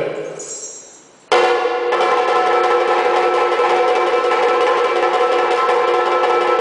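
Kathakali percussion accompaniment: a struck bell-like tone fades away, then about a second in a loud, continuous ringing of metal percussion starts suddenly, played in rapid strokes.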